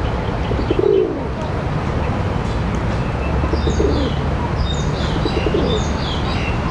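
Pigeon cooing: a low rolling coo about a second in and a longer one from about four to six seconds in. Small birds chirp high and rapidly from about three and a half seconds on, over a steady low background rumble.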